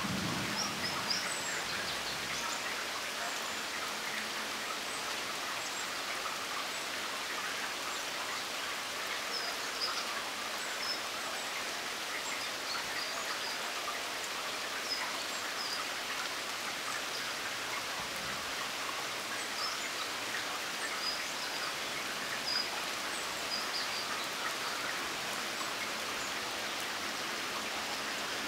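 Steady rain falling, an even hiss, with scattered short high-pitched ticks over it.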